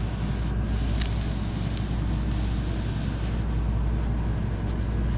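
Steady low hum with an even hiss, like a running machine or appliance, with a few faint light taps.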